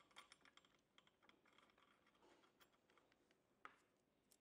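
Faint light clicks and taps of small metal parts being handled: a screw and the nozzle-height guide plate on a hot air welder. They come in a quick cluster over the first couple of seconds, then two single clicks near the end.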